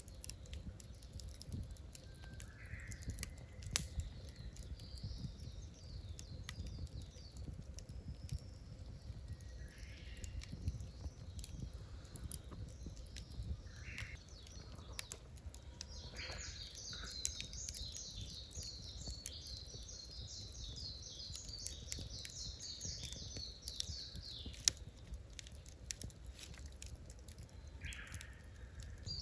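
Birds calling outdoors: short calls scattered throughout, and a long run of rapid high-pitched chattering notes through the middle of the stretch. Underneath are a steady low rumble and scattered sharp ticks.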